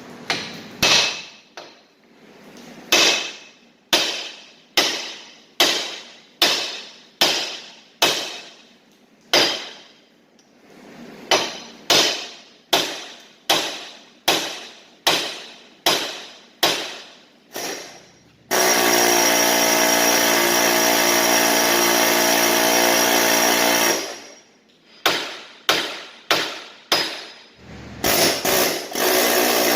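Hammer blows on steel, about one a second, each ringing and dying away quickly, while parts are driven out of the Jeep's axle during carrier and pinion removal. Partway through, a power tool runs steadily for about five seconds before the hammering resumes.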